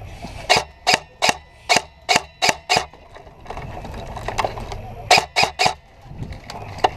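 Airsoft gun fired in single shots: a string of about seven sharp cracks, roughly two or three a second, then after a pause three more in quick succession and one last shot near the end.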